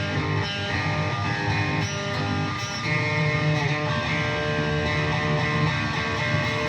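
Electric guitar through a fuzz pedal, playing held, distorted chords.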